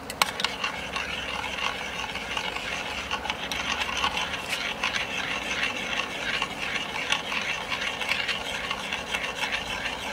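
Metal spoon stirring fast around a stainless saucepan, a steady rapid scraping and clinking, as butter is beaten into a wine and veal-stock reduction instead of with a whisk.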